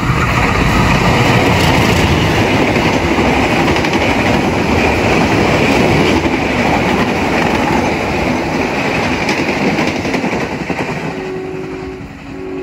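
Bangunkarta passenger train's coaches running past on the rails: a loud, steady wheel-on-rail rush with clickety-clack, easing off as the last coach pulls away. Near the end a train horn sounds in two blasts.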